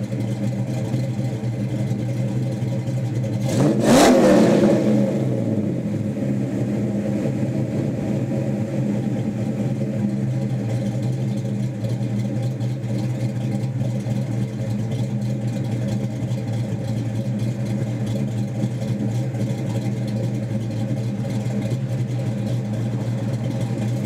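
1986 Ford Mustang 5.0 V8 idling steadily through a BBK H-pipe and Super 44 mufflers. About four seconds in, the throttle is blipped once: the engine rises sharply and falls straight back to idle.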